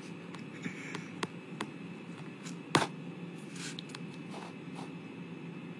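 Quiet handling noise: a few light taps and clicks, with one sharper click a little before the middle, over low steady background noise.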